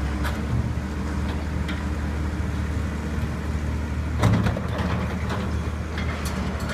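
Åkerman tracked excavator's diesel engine running steadily as it works its boom and bucket, with a few scattered clanks and a louder clattering knock about four seconds in.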